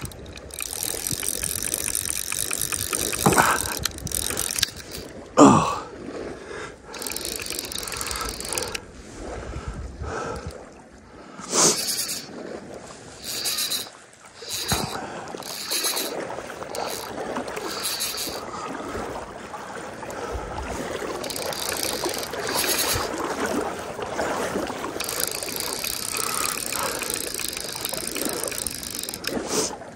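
Fly reel's click-and-pawl drag ratcheting in spurts as line goes out and is reeled back while a large trout is being played.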